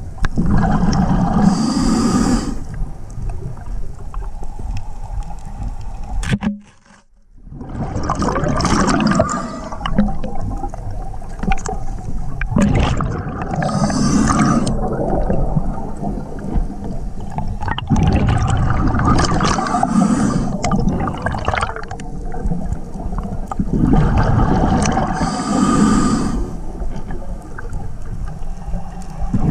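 Scuba diver breathing through a regulator underwater: hissing inhalations and rumbling, gurgling bursts of exhaled bubbles, repeating in slow cycles. The sound drops out briefly about seven seconds in.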